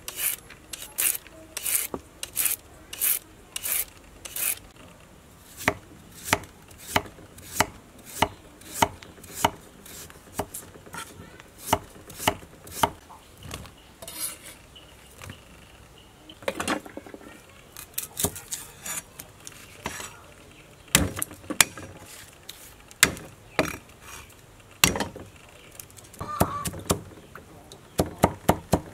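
A large knife chopping through vegetables onto a wooden chopping block, each cut a sharp knock, at first about two a second as carrots are sliced into crinkle-cut rounds. The knocks turn sparse and irregular through the middle, then quicken to about four a second near the end as garlic is minced.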